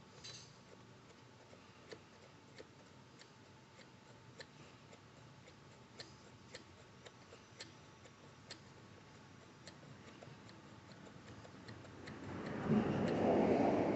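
Faint, irregular clicking of the stuck throttle trigger in a Stihl TS 400 concrete saw's rear handle as it is worked back and forth to free it, diesel having been put in to loosen debris binding it. A louder scraping rustle comes near the end.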